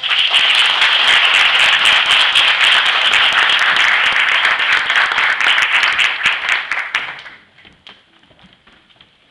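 Theatre audience applauding, a dense clapping that dies away sharply about seven seconds in to a few scattered claps.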